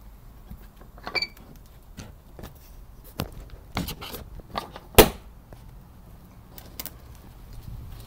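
Scattered light clicks and knocks of hands and a phone handling a hinged foam-board window panel, with one sharp, loud click about five seconds in.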